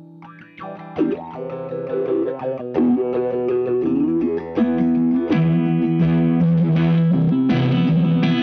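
Electric guitar played through an EarthQuaker Devices Spatial Delivery V3 envelope/step filter pedal set to one of its stored presets. A quiet first second gives way to chords and notes with swept filter tones, then fuller playing from about three seconds in.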